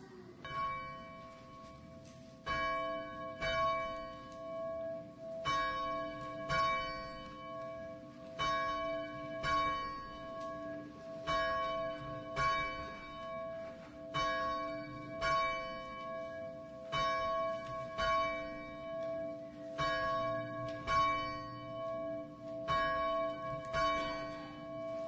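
Church bell ringing, struck about once a second in an uneven pattern, its ringing tone carrying on between the strikes.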